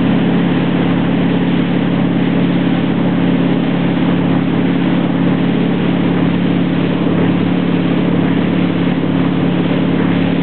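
Ski boat's engine running at a steady pitch while under way, towing a wake surfer, over the steady rush of churning wake water.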